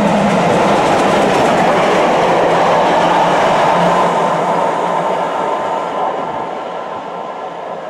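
LMS Jubilee class steam locomotive 45596 Bahamas and its coaches passing through the station at speed, with loud rushing noise and the clatter of wheels on rail. The sound fades from about five seconds in as the train draws away.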